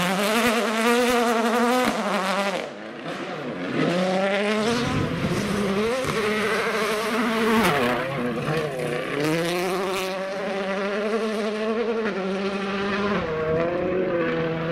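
2017 World Rally Cars, Ford Fiesta WRCs among them, at full throttle on gravel, their turbocharged 1.6-litre four-cylinder engines revving up and dropping again and again through gear changes as several cars pass in turn. Gravel spray hisses under the engine note.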